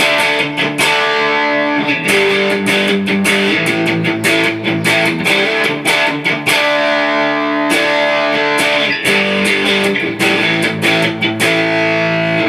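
Electric guitar played through a homemade MXR Distortion Plus clone on a breadboard, giving distorted chords that ring on and change every second or so. The clipping has been switched from the red LED to the other diode, which gives a different kind of distortion at a somewhat lower volume.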